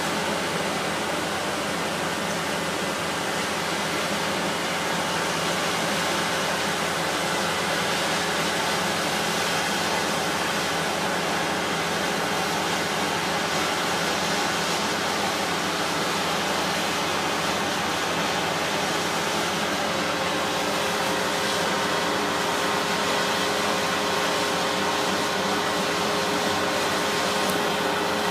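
Construction machinery engines running steadily: a constant drone with several steady tones that holds unchanged throughout.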